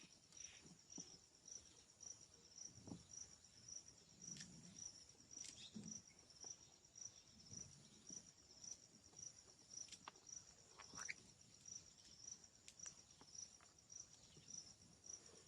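A cricket chirping steadily and faintly, a high pulsing note repeating about two or three times a second, with a few soft clicks and rustles.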